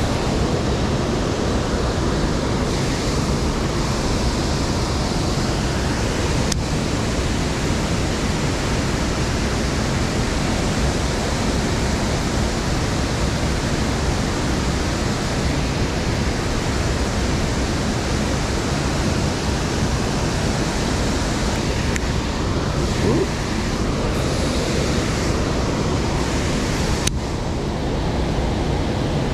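Waterfall running high in flood: a loud, steady rushing of falling water.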